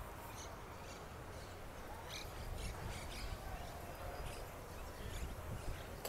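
Wind rumbling on a phone microphone, with a few faint, short high-pitched sounds scattered through.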